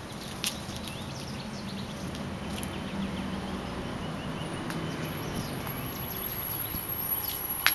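Outdoor background noise with a low rumble that grows louder over the last few seconds, and a few faint clicks.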